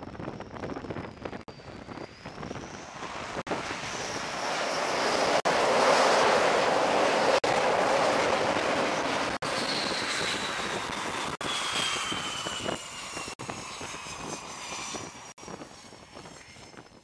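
F/A-18 fighter jet's twin jet engines during an arrested landing on a carrier deck: the noise builds as the jet comes in and is loudest at touchdown about six seconds in. Afterwards a high whine falls steadily in pitch as the engines are throttled back, and the sound fades near the end.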